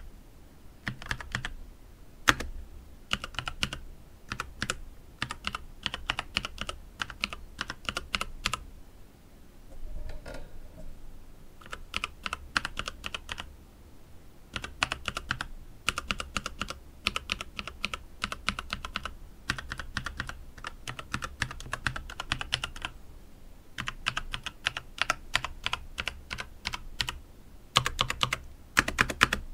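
Mechanical keyboard being typed on in quick bursts of key clicks, with short pauses between runs: a typing sound test of a quiet red- or brown-switch board.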